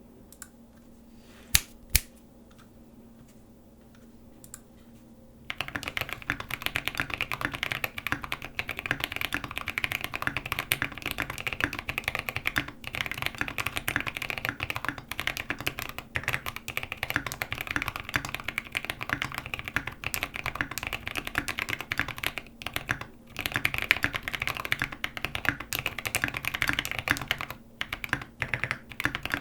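Tofu65 custom mechanical keyboard with lubed, filmed Boba U4T tactile switches, a polycarbonate plate and MT3 keycaps being typed on. Two sharp clicks about two seconds in, then fast, continuous typing from about five seconds in, with a few brief pauses.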